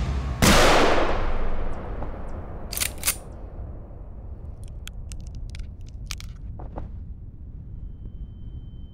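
A single loud gunshot that dies away in a long echoing tail, followed about two seconds later by two sharp clicks and a few faint scattered clicks. Near the end a thin, steady high tone begins.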